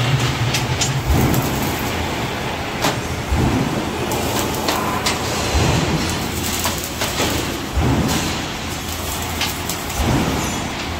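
Workshop machinery noise: a steady low hum with irregular metallic clanks and knocks every second or so.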